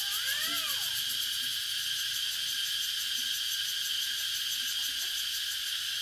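Steady chorus of insects: a continuous high buzz with a fine, even pulse. A few rising-and-falling calls sound over it during the first second.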